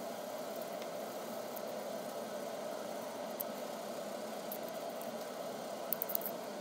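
Steel wool scrubbing the paint and coating off a flat piece of aluminum can, a steady rasping with a few faint clicks about six seconds in.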